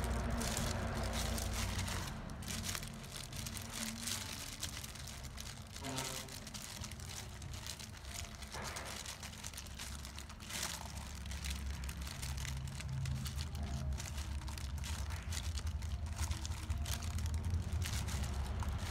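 Thin plastic food gloves crinkling, with wet squishing, as hands rub a pounded shallot, pepper and chili paste onto split lizardfish in a stone mortar. The crackle comes in irregular short bursts over a steady low hum.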